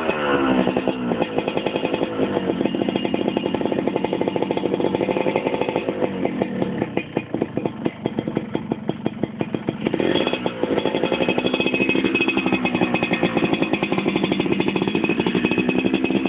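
Yamaha RS100 single-cylinder two-stroke engine running through a modified expansion-chamber exhaust, revved and dropping back. It runs at low revs with an uneven, popping beat for a few seconds around the middle, then is blipped up about ten seconds in and held at higher revs.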